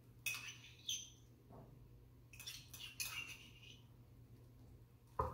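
Table knife spreading mayonnaise across bread slices: a few short scrapes and light clinks, with a louder knock near the end.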